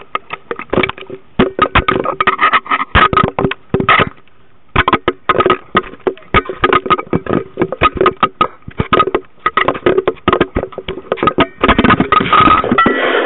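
Handling noise on a small compact camera: dense, irregular clicks, knocks and rubbing, with a short pause about four seconds in and a denser, louder stretch near the end.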